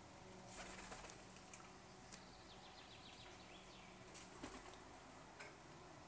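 Faint bird calls over near silence, from woodpeckers scolding a pigeon: a quick run of high chirps midway and a few short, sharp notes later.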